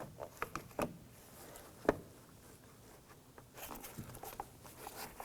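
Small plastic clicks and taps as plastic trim tabs are handled and pressed into a car door panel, with one sharper click about two seconds in and light rustling handling noise later.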